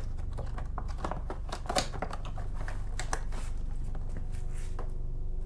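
Light clicks and rustling of hands unpacking and handling a new aftermarket motorcycle lever, busiest in the first two seconds, over a faint steady low hum.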